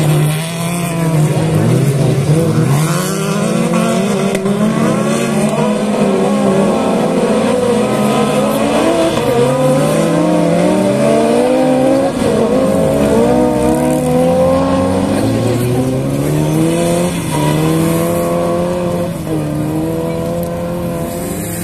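A pack of Volkswagen Beetle autocross cars racing on dirt, several air-cooled flat-four engines revving hard at once. Each engine's pitch climbs through a gear and drops at the shift, over and over. The engines ease off near the end as the pack moves away.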